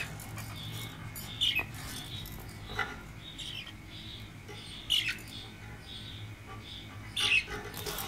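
Budgerigars chirping and chattering in short high notes, with three louder, downward-sliding calls at about a second and a half, five and seven seconds in.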